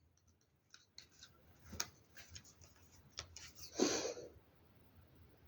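Faint handling of tarot cards on a table: a few small clicks and taps, with one brief, louder rustle about four seconds in.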